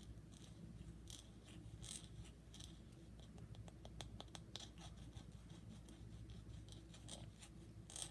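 Faint, close-miked scratching and light tapping, with a quick run of small clicks about halfway through: ASMR-style trigger sounds.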